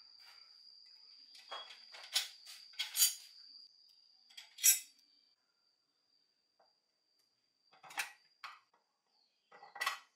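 Metal parts of a Homelite chainsaw clinking as they are handled and fitted during reassembly: a cluster of sharp clinks about two to three seconds in, a loud one near five seconds, and two more near the end. A faint steady high whine sits underneath for the first half.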